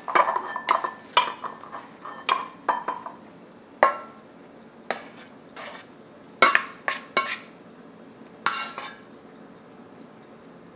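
A spatula scraping spicy cucumber salad out of a stainless steel mixing bowl into a small ceramic bowl, with the utensils knocking together. The scrapes and clinks come close together for the first three seconds, then as single knocks and a quick cluster of them about six and a half seconds in.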